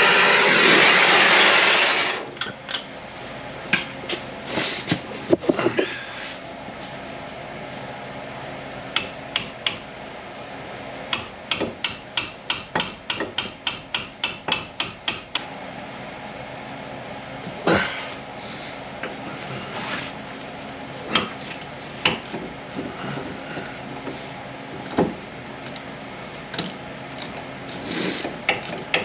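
Ratchet wrench working on the wheel hub mounting bolts: a run of even clicks, about three or four a second, among scattered clanks of metal tools. A loud steady whir cuts off about two seconds in.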